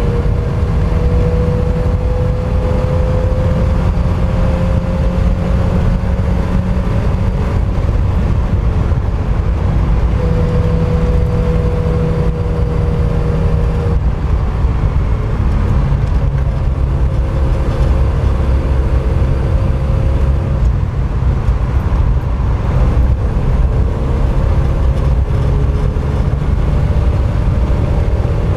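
Mk1 Mazda MX-5's four-cylinder engine driven hard on track, its note climbing steadily and then dropping several times as the revs change, with one sharp drop about halfway through, under a heavy low rumble.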